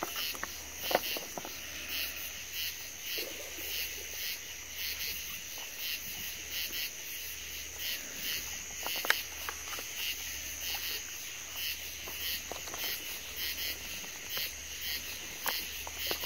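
A steady pulsing chorus of crickets and other night insects. Two sharp knocks stand out, about a second in and again about halfway through.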